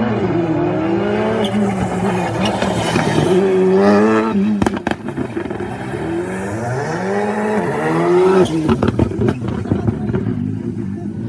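Škoda Fabia Rally2's 1.6-litre turbocharged four-cylinder engine working hard: revs climb, drop sharply at gear changes or lift-off about four seconds in and again near eight and a half seconds, then build again. A short run of sharp cracks comes as the revs drop.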